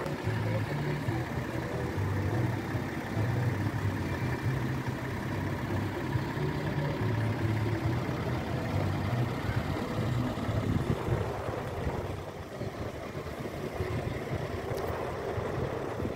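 A large engine idling steadily, a low rumble that eases off somewhat about twelve seconds in.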